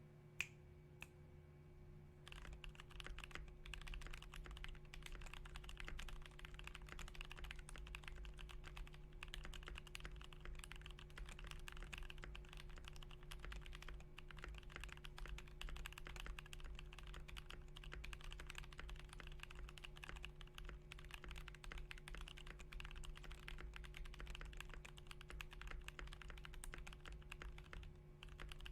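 Typing on a GMMK Pro mechanical keyboard with lubed AEBoards Naevy switches in an aluminium plate, foam removed, and ABS keycaps: a lone keystroke, then continuous fast keystrokes starting about two seconds in.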